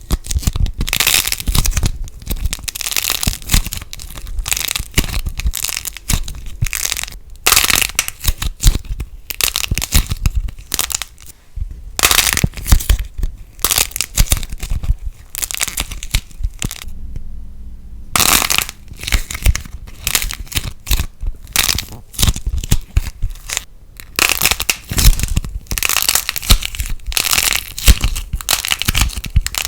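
Light plasticine slime squeezed and pulled apart close to the microphone, crackling and popping in dense irregular bursts with short pauses between handfuls.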